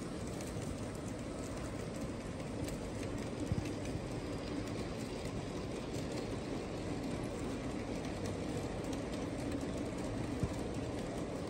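G-scale model trains running on the layout track: a steady rumble of wheels and motors with a faint steady hum, and two brief clicks, one about three and a half seconds in and one near the end.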